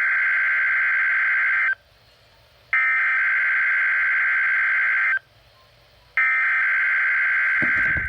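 NOAA Weather Radio EAS digital header for a Required Weekly Test: three bursts of warbling two-tone data screech, each about two seconds long with a second's gap between. A low thump comes in just before the end.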